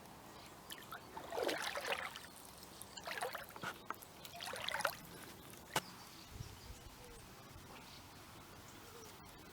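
Lake water splashing and sloshing softly in a few short bursts, with a single click a little before the sixth second.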